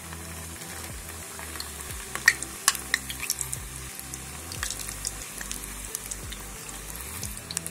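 Papdi discs of maida dough deep-frying in hot oil in a kadhai. A steady sizzle is broken by sharp crackling pops, loudest and most frequent about two to three and a half seconds in, as the freshly added dough bubbles in the oil.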